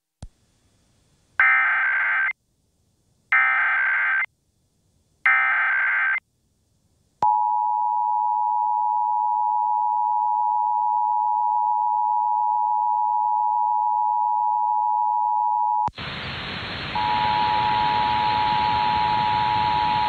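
Emergency Alert System tones for a Required Monthly Test. First comes the SAME digital header: three roughly one-second bursts of screeching data warble. Then comes the EAS two-tone attention signal, a steady dual tone held for about nine seconds; near the end a loud hiss cuts in and the two tones sound again over it.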